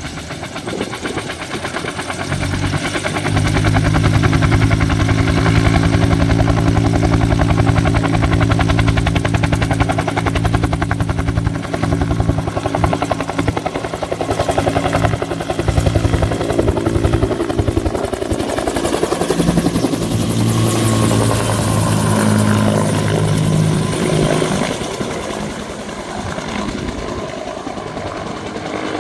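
Firefighting helicopter flying in low, its rotors beating rapidly and steadily. The sound grows louder over the first few seconds as it closes in, then eases off a little near the end as it passes over.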